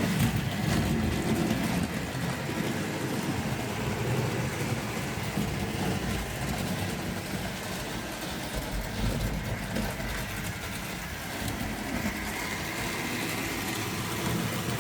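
Tri-ang OO gauge model train running steadily round the layout: the locomotive's small electric motor humming and the wheels rumbling along the track as it hauls the car transporter wagons.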